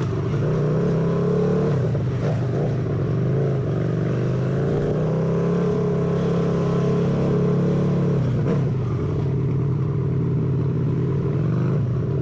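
Harley-Davidson V-twin motorcycle engine running at low city speed, heard from the rider's seat, its pitch rising and falling gently with the throttle and easing off briefly about two seconds and about eight seconds in.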